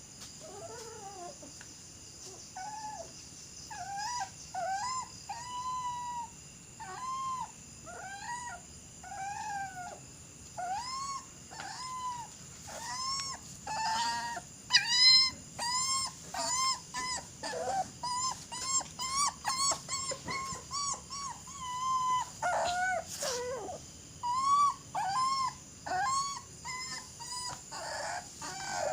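A dog whining and howling in a long series of short, high, rising-and-falling cries, coming faster and closer together from about halfway on.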